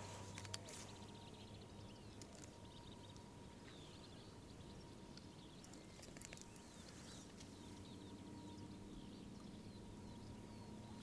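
Near silence: faint riverside ambience with distant birds chirping, a faint steady hum and a few soft clicks.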